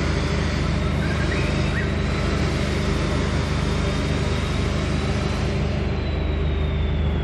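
A steady, unchanging low mechanical hum under a constant hiss, with a faint high tone that slowly falls in pitch near the end.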